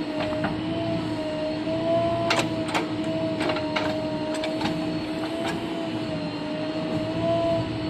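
Bulldozer working: a steady mechanical whine with scattered sharp metallic clicks and clanks, most of them between about two and five and a half seconds in.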